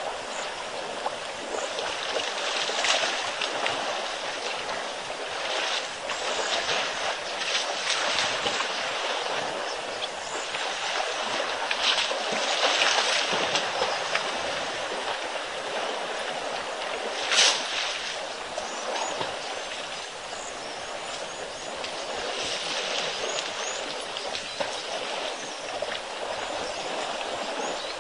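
Water and mud sloshing and splashing steadily as a herd of elephants wallows in a muddy waterhole, with a few sharper splashes.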